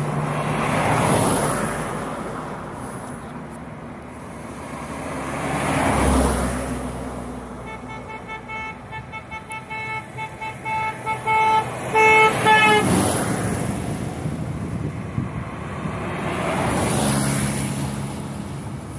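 Classic cars in a convoy driving past one after another, each engine swelling and fading away. Near the middle a car horn sounds in a rapid string of short toots, ending in a couple of longer blasts.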